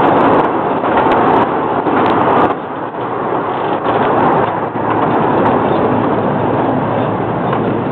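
Miniature park train's open passenger cars rolling along the track: a loud, steady rumble and rattle with scattered clicks, dipping briefly about two and a half seconds in.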